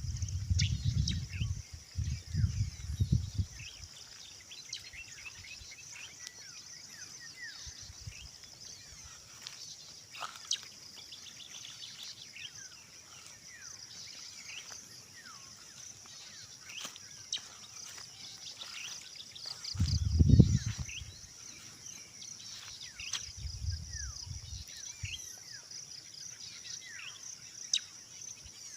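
Steady high-pitched insect chorus with many short, quick bird chirps over it. Low rumbles break in during the first few seconds and again about two-thirds through.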